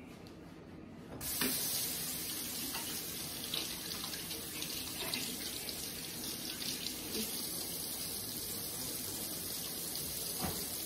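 Kitchen sink tap turned on about a second in and running steadily while hands are washed under it.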